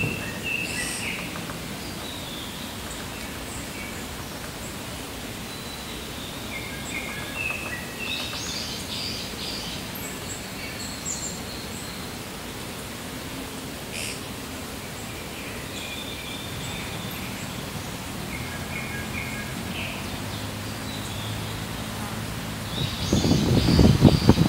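Several small birds chirping and trilling on and off over a steady outdoor background hiss. Near the end, a loud low rumbling burst of wind and rustling comes in.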